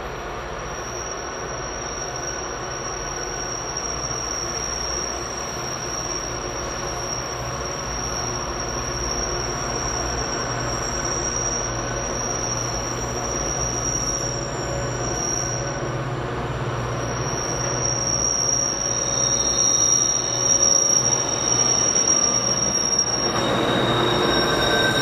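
Diesel locomotives working hard up a steep grade: a steady engine drone that grows louder as the train approaches, with a continuous high-pitched squeal from the wheel flanges on the curve. Near the end the sound changes abruptly to a louder, closer locomotive passing.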